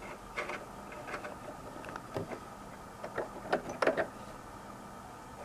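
Soft scattered clicks and rustles of fingers handling thread at a sewing machine's thread guides and needle while threading it by hand, with a few sharper ticks a little under four seconds in; the machine itself is not running.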